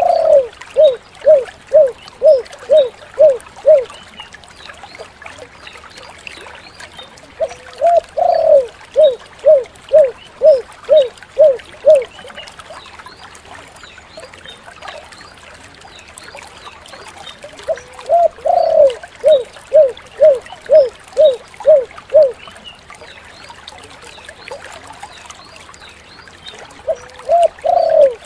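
Spotted dove (tekukur) cooing: phrases repeating about every ten seconds, each a short swooping opening note followed by a quick string of short, evenly spaced coos.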